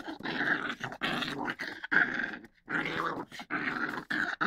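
Dog growling continuously, a chain of about six long growls each under a second, broken only by quick breaths.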